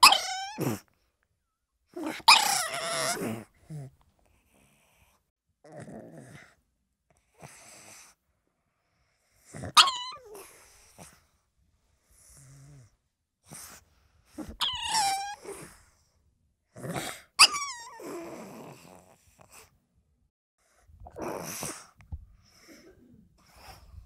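A pug making a string of separate short vocal sounds: several whining calls that slide down in pitch, with noisy breathy grunts between them.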